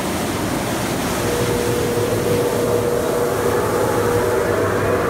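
Automatic car wash running: water spraying and spinning cloth wraparound brushes make a steady rushing wash of noise. A steady mechanical whine from the wash machinery comes in about a second in and grows stronger.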